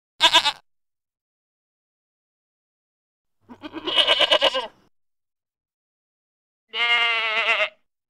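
Goat bleating three times: a short bleat, then a longer quavering one, then a steadier bleat of about a second.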